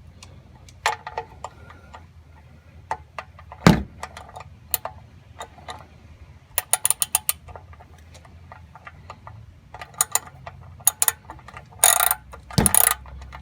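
Hand tools working on metal: scattered sharp clicks and knocks, with short runs of rapid ratchet-like clicking in the second half. One loud knock comes a little under four seconds in.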